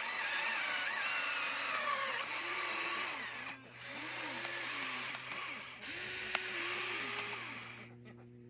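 Remote-control toy excavator's electric motors whining as its boom and bucket move, the pitch rising and falling, with short breaks about three and a half and six seconds in. The whine grows quieter near the end.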